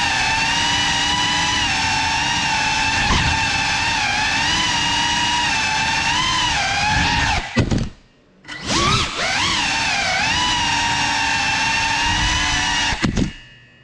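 Small FPV drone's motors and propellers whining, the pitch rising and falling with the throttle. About eight seconds in the motors cut off for under a second, then spool back up; they cut back again near the end.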